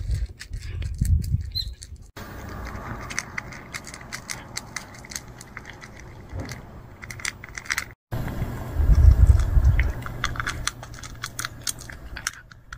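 A cat eating dry kibble from a bowl: a quick run of small, crisp crunches and clicks. There is low rumbling on the microphone near the start and again a little past the middle.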